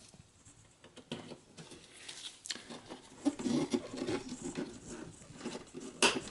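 Plastic-and-metal handling noises as a DDR3 RAM stick is lined up and pressed into a desktop motherboard's memory slot, with a few small ticks. Near the end comes a sharp click: the slot's retaining clip snapping shut, the sign that the module is seated and locked.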